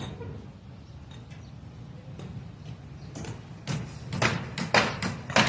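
Hammering: a run of sharp strikes, about two a second, starting about three seconds in, over a low steady rumble.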